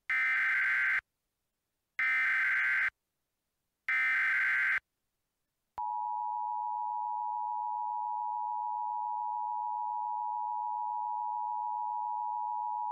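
Emergency Alert System tones. Three one-second bursts of SAME digital header data come about a second apart. About six seconds in, the steady two-tone EAS attention signal starts, which announces the tornado warning message that follows.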